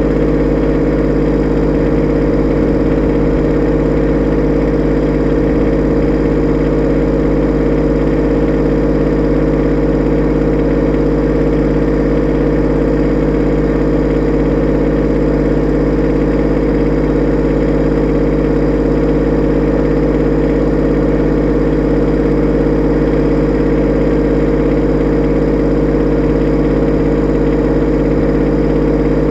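Kubota B2601 compact tractor's three-cylinder diesel engine idling steadily.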